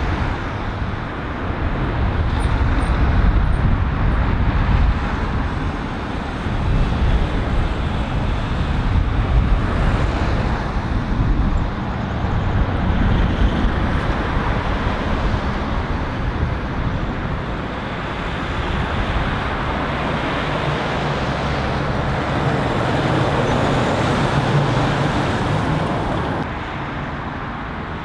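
Road traffic passing: cars, vans and lorries, with engine and tyre noise swelling and fading as each goes by. A steady, deeper engine drone holds for several seconds near the end.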